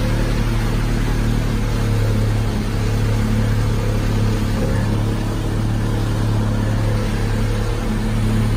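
Motorboat engine running steadily at cruising speed as the boat moves across the water, with a constant low hum and a rushing of wind and water over it.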